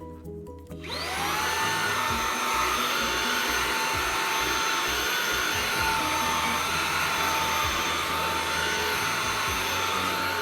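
Xiaomi Mi Handheld 1C cordless stick vacuum switched on: its motor spins up about a second in, then runs at a steady high whine with an airy hiss of suction.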